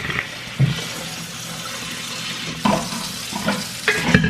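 A steady hiss with a few knocks and clunks of things being handled, about half a second in, near the three-second mark and near the end.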